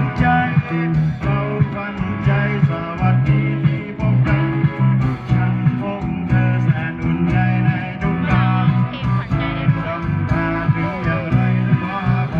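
Live band music: guitar over a steady bass line, with regular drum hits.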